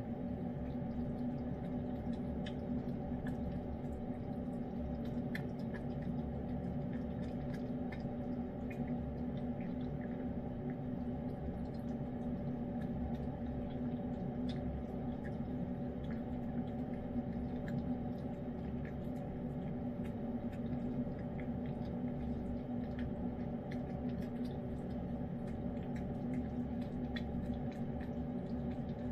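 A cat eating wet pâté cat food from a hand-held bowl: many small wet licking and chewing clicks, scattered and irregular. Under them runs a steady low hum.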